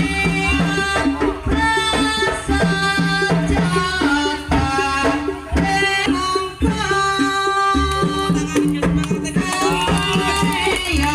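Jaranan folk music: hand drums beating steadily under a melody of held, reedy-sounding notes.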